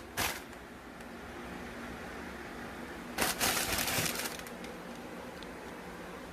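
Rustling and handling noise from the sneaker packaging: a brief rustle just after the start and a longer, louder rustle about three seconds in, over a steady low hiss.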